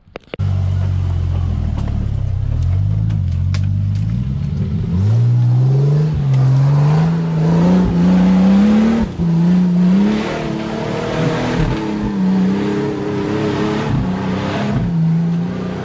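Nissan Patrol comp truck's engine revving hard under load up a steep dirt track, its pitch climbing, dropping back and climbing again over and over.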